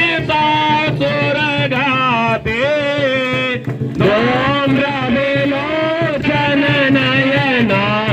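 Devotional aarti song: a voice singing a wavering melody over steady musical accompaniment, with a short break about three and a half seconds in.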